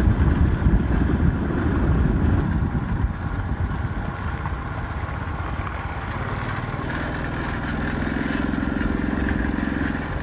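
Small motorbike engine running while riding, with wind rushing over the microphone. The wind buffeting is heaviest in the first few seconds, and a steady engine note comes through more clearly in the last few seconds.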